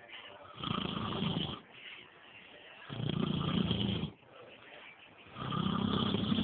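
Pro Stock drag bike engine idling roughly and misfiring, surging up three times in bursts of about a second each, with quieter, uneven running between.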